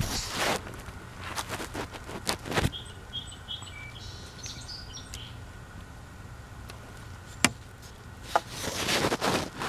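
Clicks, knocks and scrapes of grilled chicken pieces being lifted off a wire grill rack onto a plastic plate. A few short high bird chirps come in about three to four seconds in.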